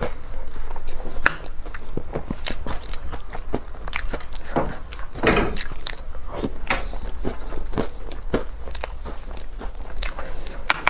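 A person eating close to the microphone: irregular bites and chewing with crisp, crunchy clicks.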